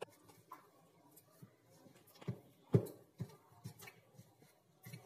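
Hands kneading soft flour dough in a plastic mixing bowl: faint squashing and rustling, with a few short soft thuds, the loudest nearly three seconds in.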